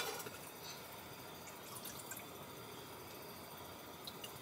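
Makgeolli being poured from its bottle into a small cup, a faint liquid trickle, after one sharp knock of tableware set down on the wooden table at the start.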